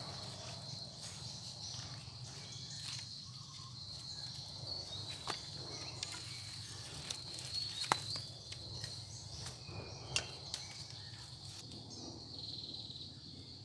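Insects chirring steadily in one constant high tone, over a low rumble, with a few sharp clicks, the loudest about eight and ten seconds in.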